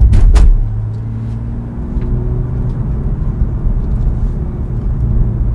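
Cabin sound of a 2018 BMW M2 at a steady cruise. The 3.0-litre turbocharged straight-six holds a low, even drone under the tyre and road rumble, after a short burst of noise at the very start.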